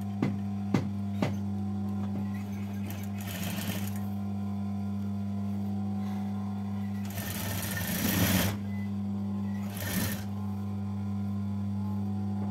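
Sewing machine stitching a seam in a few short runs, starting and stopping, with light clicks of handling near the start.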